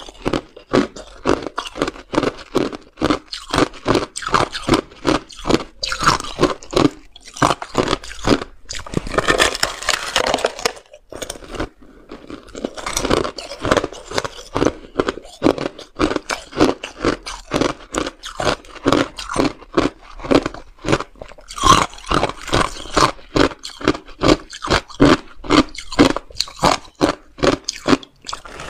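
Ice crunching between the teeth as a block of clear ice with frozen pomegranate seeds in it is chewed, in a steady run of about three crunches a second. About a third of the way in comes a longer, rougher grinding crunch.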